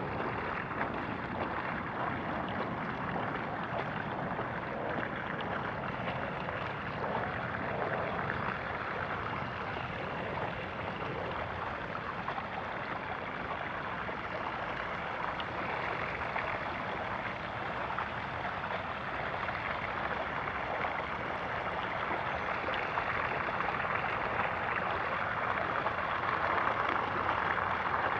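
Bicycle tyres rolling through shallow floodwater, a steady splashing hiss that grows a little louder near the end.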